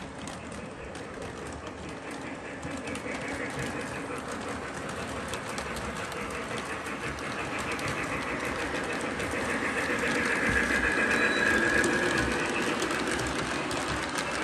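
Lionel model train running on the layout track, a steady rolling rumble with fast clicking of wheels over the rails, growing louder as the train comes close.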